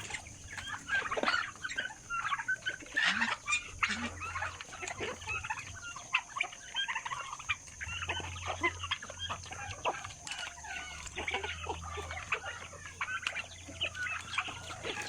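A flock of chickens clucking at feeding time, with many short calls overlapping continuously.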